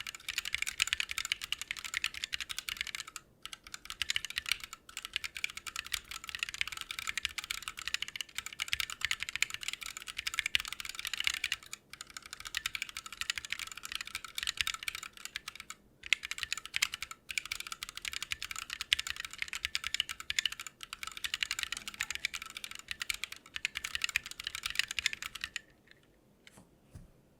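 Fast, continuous typing on a Lily58 Pro split mechanical keyboard with Blue Bubblegum switches, broken by a few brief pauses. The typing stops about two seconds before the end, leaving a couple of faint key clicks.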